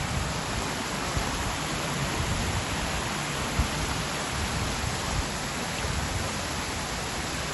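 Stormwater from a heavy storm running across gravel and spilling over a low concrete ledge, a steady rushing. A single thump about halfway through.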